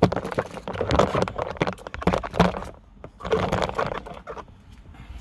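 Close rustling and crackling handling noise, clothing and the phone being moved right by the microphone: a jumble of clicks and scrapes that dies down near the end.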